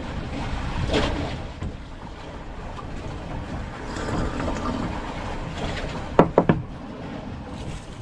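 Steady wind and sea noise with wind buffeting the microphone, and two sharp knocks a little after six seconds in.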